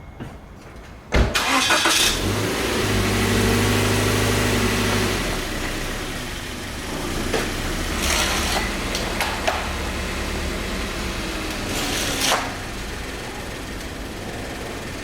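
A Toyota 86's engine being started about a second in: a brief crank, then it catches and runs at a fast idle. About five seconds in the pitch drops and it settles into a steady idle, with two short louder noisy bursts later on.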